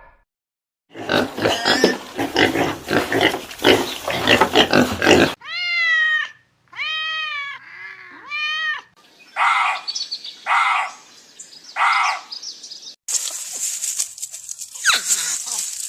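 A run of different animal calls. First a long stretch of harsh, noisy cries, then three arched, pitched calls that rise and fall. These are followed by four short rough calls about a second apart, and last a hissing stretch with a few quick falling whistles.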